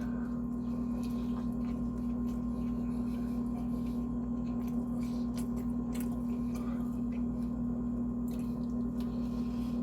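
A steady electrical hum holding one constant pitch, with a few faint small clicks and wet mouth sounds from eating.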